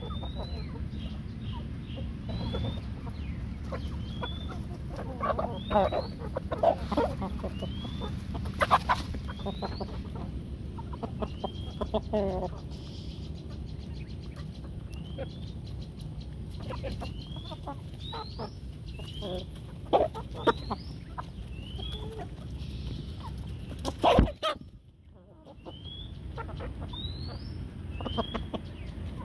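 Free-range chickens and roosters clucking as they forage, with a short high rising peep repeated about once every second or two. A single sharp knock comes about three-quarters of the way through.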